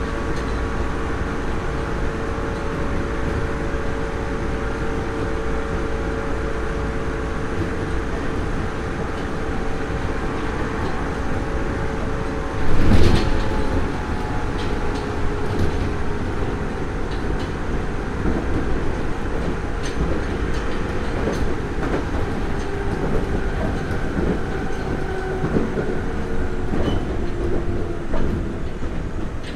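Heard from inside a Nagoya Municipal Subway 3000 series armature-chopper electric train running between stations: steady rolling noise with wheels clicking over rail joints and a faint steady hum from the traction equipment. A short, much louder burst of rumble comes about halfway through.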